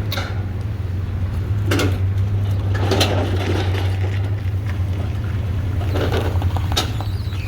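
A vehicle engine running steadily with a low drone, with a few short rattles and knocks over it.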